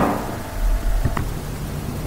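Pause in a voice-over: the recording's steady low hum and hiss, with a faint click just after a second in.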